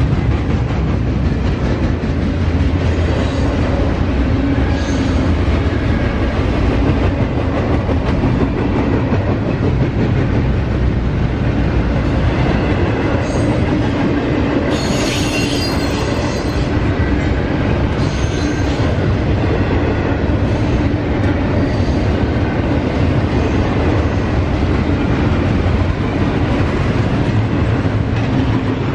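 Double-stack intermodal container train rolling past at close range: a steady loud rumble and clatter of the well cars' steel wheels on the rails, with a brief high-pitched screech about halfway through.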